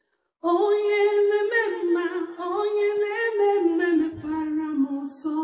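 A woman singing unaccompanied, holding long notes that step up and down in pitch; the singing starts about half a second in after a brief silence.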